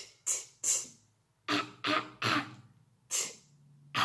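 A woman's voice sounding out the letter T in short, breathy puffs, about eight in a row, a couple of them joined to a short vowel as in 'ta'.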